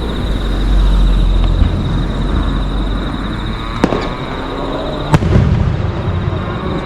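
Fireworks display: a deep rumbling boom of shells bursting about a second in, then two sharp cracks about four and five seconds in, with a steady high-pitched tone underneath.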